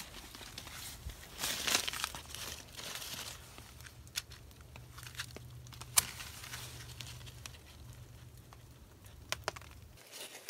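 Packing paper crumpled and torn by hand, being prepared as tinder for a fire. There is a single sharp click about six seconds in, and a few smaller clicks near the end.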